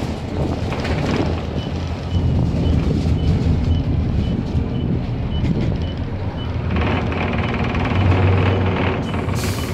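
Optare Solo SR single-deck bus's diesel engine and road noise from inside the cabin while it drives along. A faint regular high beep sounds about two and a half times a second through the middle, and there is a short hiss near the end.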